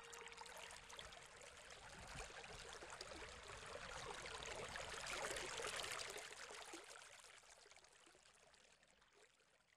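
Shallow stream running over pebbles: a steady, faint rush of water that swells toward the middle and then fades out.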